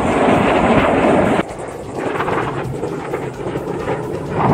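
Jet engine roar from Blue Angels jets flying overhead, cutting off abruptly about a second and a half in. A quieter jet rumble runs on after the cut and swells again near the end.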